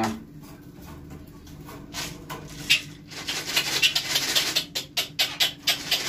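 Dry clicking and rattling of a plastic feed container and hard feed pellets at a wire bird cage as feed is put in. It is quiet at first, then from about three seconds in comes a quick, irregular run of sharp clicks.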